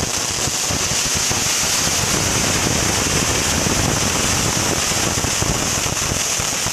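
Firecrackers going off on the ground: a loud, continuous rapid crackling with a hiss, lasting the whole stretch without a break.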